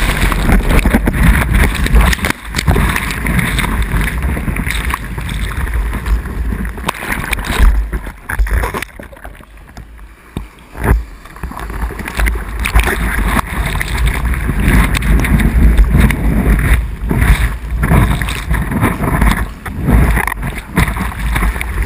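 Sea water sloshing and splashing over a bodyboard and the waterproof housing of a board-mounted action camera, with a heavy low rumble of water and wind buffeting the microphone. It goes quieter for a few seconds about halfway through, then the splashing picks up again.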